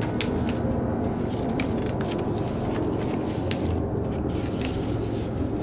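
Sheets of old paper and newspaper clippings being handled and turned over, a string of short crisp rustles, over a low steady drone.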